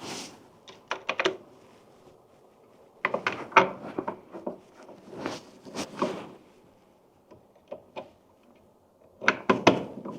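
Clicks and knocks of a GFCI receptacle being handled and tucked into its electrical box, coming in four short clusters.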